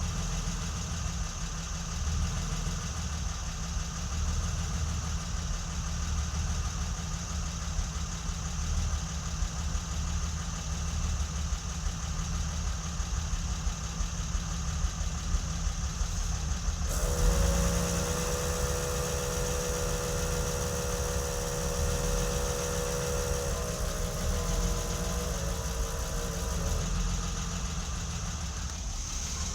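BMW E30's M20B27 2.7-litre inline-six idling steadily. Partway through, a second steady hum with a hiss joins for about ten seconds, then drops away.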